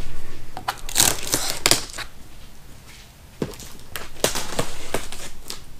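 Cardboard shipping box being opened by hand: irregular scrapes, crinkles and clicks of flaps and packing, with a quieter lull in the middle.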